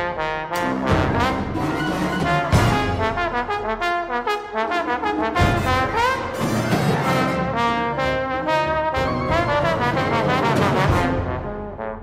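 Solo trombone and wind ensemble playing a fast, loud passage, with the brass to the fore and sharp percussive accents. The full texture thins out briefly near the end.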